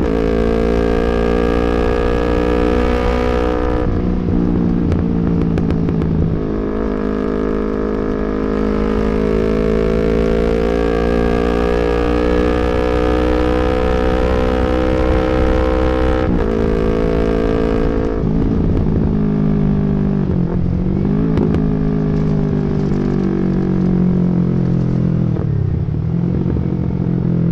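Yamaha MT-25 parallel-twin motorcycle engine running under way, heard from the rider's seat. The engine note is mostly steady, shifts a few times, and twice in the second half drops briefly and climbs again.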